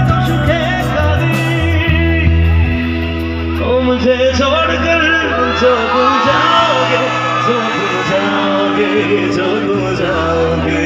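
Male singer singing a song live into a microphone over loud backing music played through a PA system, with a heavy bass beat. The bass drops out partway through and comes back near the end.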